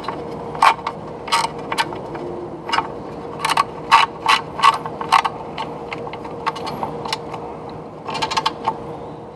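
Hand socket ratchet clicking as a bolt under a motorcycle's skid plate is turned, in short irregular runs of sharp clicks with a cluster in the middle and another near the end.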